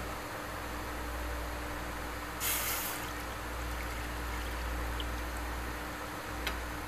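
Milk poured from a glass bowl into a pan, over a steady low hum, with a short burst of hiss about two and a half seconds in.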